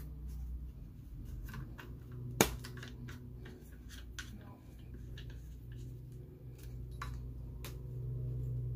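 Hard plastic parts of a ring light's tripod mount and phone clamp clicking and rattling as they are handled and fitted together, with one sharp snap about two and a half seconds in.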